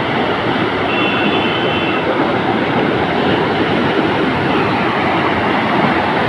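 Muddy floodwater rushing fast down a narrow channel, a steady loud rush of water. A thin high tone sounds briefly about a second in.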